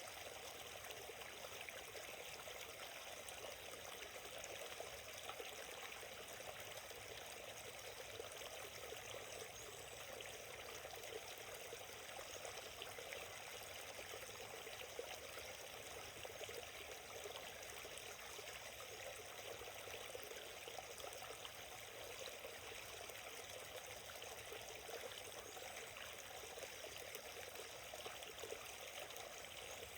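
Small forest stream flowing steadily, with water trickling and burbling over stones.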